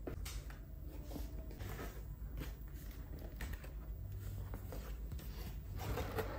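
Cardboard box lid and flaps being pulled open and handled: faint rustles and soft scrapes of cardboard, a little louder near the end.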